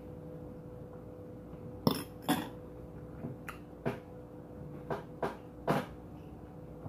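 Metal fork clinking against a glass dish of food, about seven sharp clicks in the middle few seconds, over a faint steady hum.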